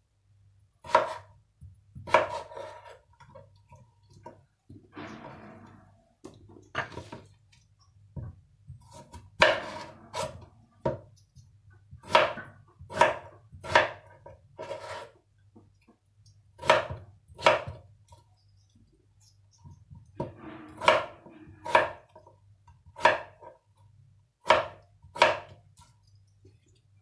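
Kitchen knife slicing raw potatoes on a wooden cutting board: sharp knocks of the blade meeting the board, roughly one a second in uneven runs with pauses between. There is a brief softer scrape about five seconds in.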